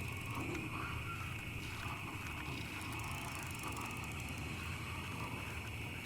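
Bicycle being ridden: tyres rolling with a steady low rumble, with faint clicking from the chain and freewheel ratchet, over a steady high-pitched drone.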